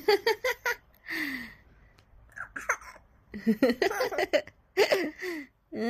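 Short bursts of a high-pitched voice: a quick run of laugh-like pulses at the start, a breathy gasp about a second in, then more broken vocal sounds.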